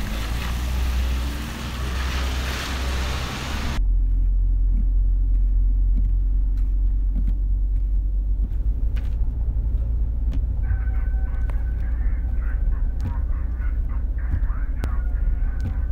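A car moving off across wet asphalt, with a steady hiss of noise. It cuts off suddenly to a deep, steady rumble heard from inside a moving car's cabin. About ten seconds in, faint wavering, pitched honk-like tones join the rumble.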